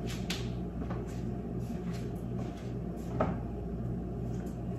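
Light knocks and clicks of things being handled in a kitchen, the clearest about three seconds in, over a steady low hum.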